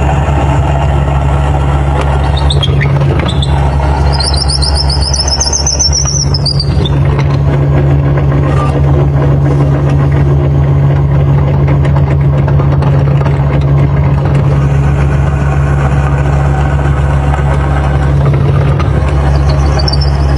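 Electric power tool motor running steadily with a deep hum, with a brief wavering high squeal about four seconds in.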